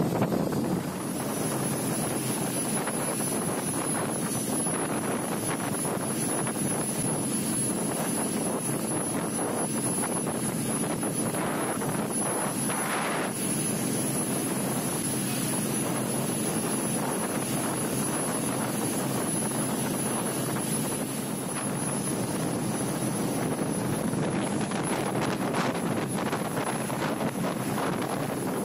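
Rigid inflatable speedboat under way at speed: a steady engine drone mixed with the rush of wind and water.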